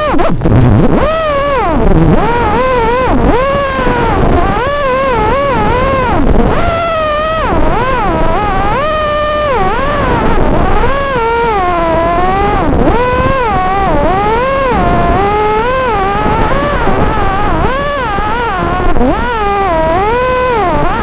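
FPV racing quadcopter's four ZMX 2205 2633kv brushless motors spinning King Kong 5x4 props, whining loudly in flight. The pitch rises and falls constantly, about once a second, as the throttle is worked.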